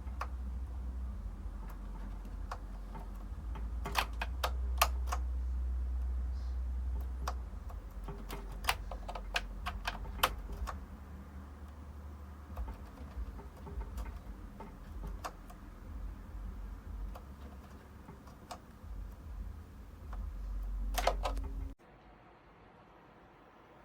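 Keys of a G-LAB Keyz Hydrogen semi-mechanical keyboard being pressed: scattered clicks with a few quick runs, over a low steady hum. Everything cuts off suddenly near the end.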